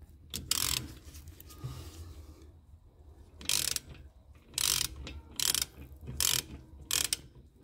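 A ratchet wrench with a bit clicks in short repeated strokes, about one every three-quarters of a second from about halfway in, as it turns the electric parking-brake spindle of a rear brake caliper counterclockwise to adjust the piston. There is a single scrape of metal near the start.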